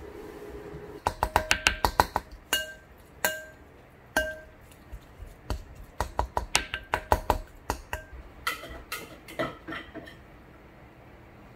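A spatula strikes and scrapes against a glass mixing bowl as microwaved tofu is broken up inside it. The bowl gives a short clear ring after each hit: first a fast flurry, then a few single knocks, then another run of taps. It starts about a second in, when a steady microwave hum cuts off.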